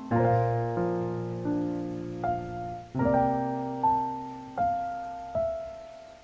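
Background piano music: soft chords struck about every second and a half, each ringing and fading before the next.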